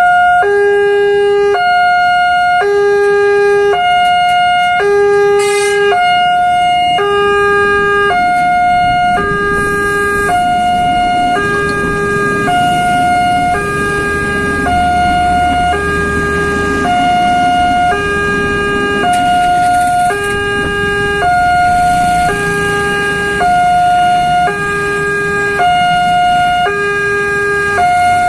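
Railroad level-crossing warning siren sounding a two-tone alarm, switching between a higher and a lower tone about once a second, warning that a train is approaching. A low rumble swells and fades in the middle.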